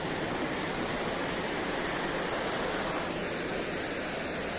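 Steady rushing of fast-flowing river water, an even roar with no breaks.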